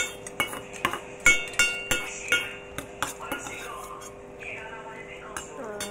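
Metal fork clinking and scraping against a stainless steel bowl of french fries, a quick series of ringing clinks through the first three seconds or so that then die away.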